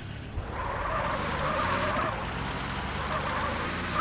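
A motor vehicle running: the sound swells in about half a second in and then holds steady, with a wavering whine over it.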